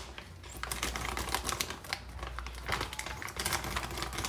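Rapid, irregular clicking and tapping from hands working during food preparation.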